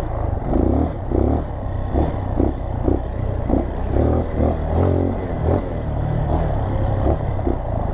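Dirt bike engine running on the move, rising and falling in quick surges with the throttle, now off choke and just warmed up.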